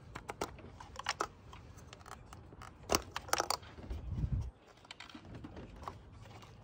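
Plastic electrical connectors being unclipped and pulled off a 2010 Dodge Avenger SXT's ignition coils: a series of sharp small clicks and snaps, the loudest about three seconds in, with a short low thump of handling about four seconds in.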